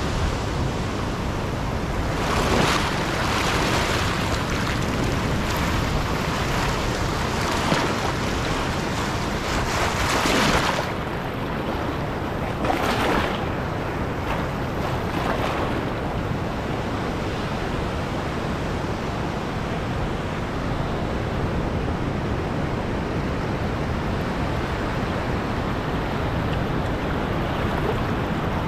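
Ocean surf on a sandy beach: waves breaking offshore and shallow foamy water washing in and swirling around a rock. Several louder surges of rushing water come in the first half, then a steadier, softer wash.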